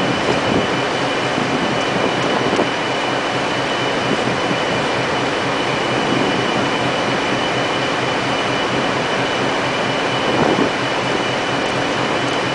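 Heavy-lift gantry machinery running: a steady mechanical din with a constant high whine throughout.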